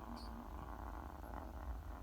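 Pet parrots making a steady low, rough, purring chatter, with a short high chirp about a quarter-second in.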